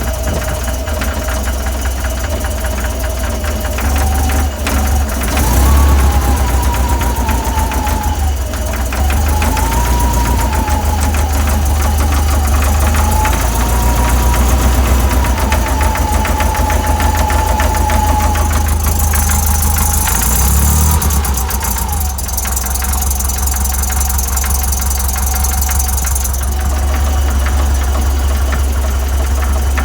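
VW 1641cc air-cooled flat-four engine on twin DRLA carburettors running with a rapid, regular knock. The revs rise slightly about five seconds in and settle back about two-thirds of the way through. The knock comes from an aftermarket crank pulley that has developed play.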